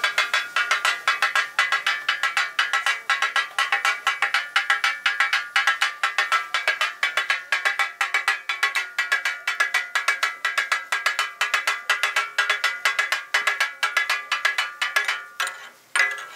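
Metal spatula chopping and striking a flat steel griddle (tawa) in a fast, even clatter of about four ringing metallic strikes a second, cutting up tomatoes and green chillies on the hot plate. The clatter breaks off just before the end.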